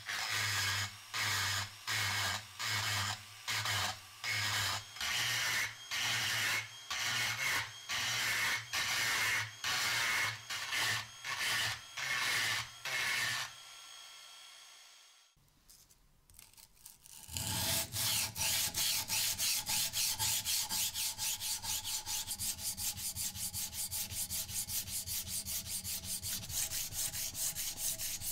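Rotary tool with a small abrasive point grinding rust out of a steel hammer head's eye in short repeated passes, about two a second, with the motor's hum under them. It stops about halfway through, and a few seconds later an abrasive sanding stick starts rubbing fast back and forth across the hammer's steel face, hand sanding it.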